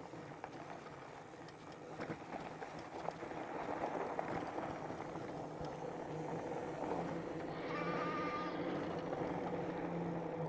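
Fat-tire e-bike riding on a dirt trail: a steady motor whine over tyre and trail noise, getting louder after a few seconds. A brief higher tone sounds about eight seconds in.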